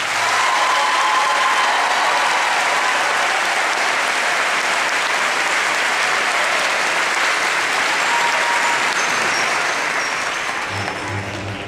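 Audience applauding, the applause tapering off near the end.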